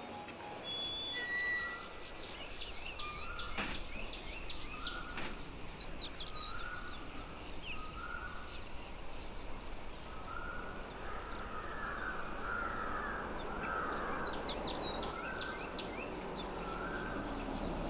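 Outdoor ambience of several birds calling: many quick high chirps, and a short mid-pitched call repeated roughly once a second, louder in the middle of the stretch.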